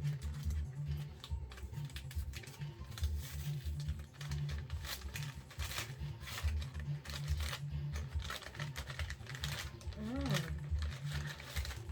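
Packaging being handled and opened: rapid clicking, crinkling and rustling of plastic and cardboard, over a low rumble. About ten seconds in there is a brief pitched sound that rises and falls.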